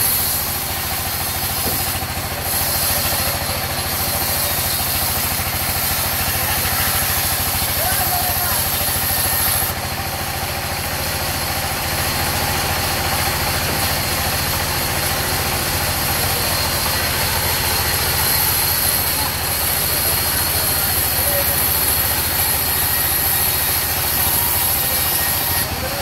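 Belt-driven sawmill saw and its engine running steadily under load as it rips a log slab into boards: a constant mechanical drone with saw noise over it, without a pause.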